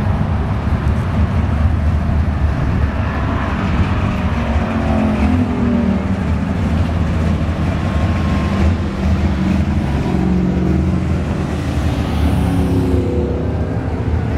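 Cruising cars driving past on a street, engines rumbling low and steady. Engine pitch rises and falls as cars pass or rev, about four seconds in and again from about ten seconds in.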